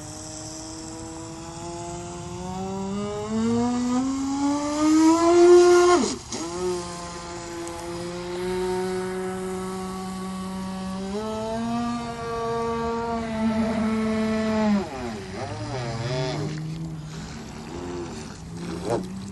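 Remote-control boat's motor whining at high pitch. Its pitch climbs, dips sharply about six seconds in, holds steady, steps up again, then falls away and wavers near the end as the throttle is worked.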